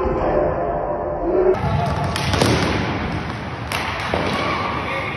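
Inline hockey play in an echoing sports hall: sharp knocks and thuds of sticks, puck and players against the boards and goal, several spread over the last few seconds, with players' voices.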